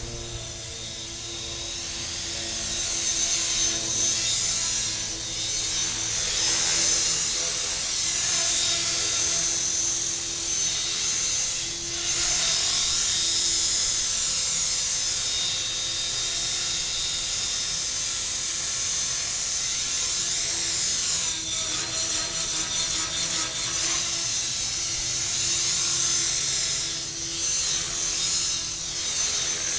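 Tarot 450 Pro electric RC helicopter hovering: the high whine of its brushless motor and gears with the whirr of the rotor blades. It grows louder over the first few seconds, then holds steady with small wavers as the helicopter moves about.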